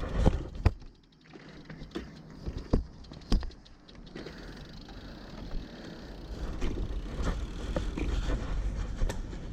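Wind and road rumble picked up by a GoPro Hero6 camera mic, with its wind-noise reduction off, while riding a small-wheeled folding bicycle, with scattered sharp clicks and knocks. The rumble drops away about a second in and builds back up gradually from about four seconds on.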